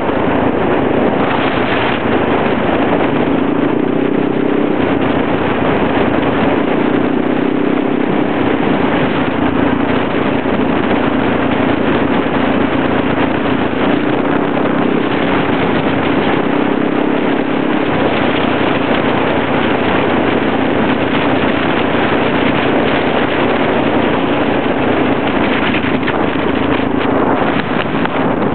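Motor scooter engine running steadily at cruising speed while riding, with wind rushing over the microphone.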